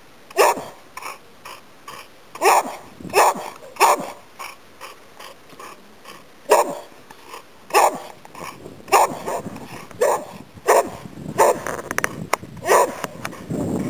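An elderly Boxer barking in short single barks, more than a dozen, at uneven gaps of about half a second to two seconds.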